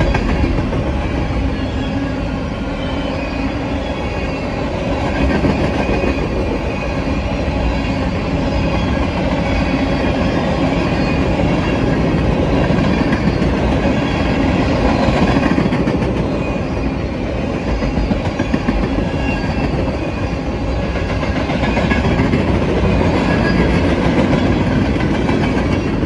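Freight cars of a manifest train (covered hoppers, tank cars and centerbeam flatcars) rolling past close by: a loud, steady rumble of steel wheels on the rails.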